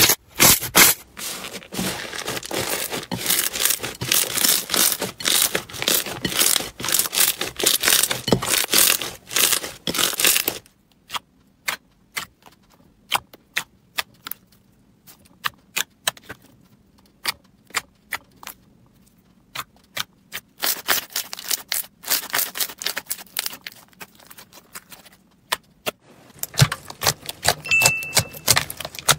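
Slime being kneaded and squeezed by hand, giving rapid crackling and popping clicks. The clicking is dense for the first ten seconds or so, thins to scattered pops with quiet between them, then turns dense again.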